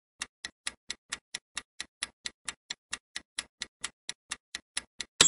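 Quiz countdown-timer sound effect: an even clock-like ticking, about four ticks a second, while the answer time runs down. Right at the end a louder sound effect with a high ringing tone cuts in.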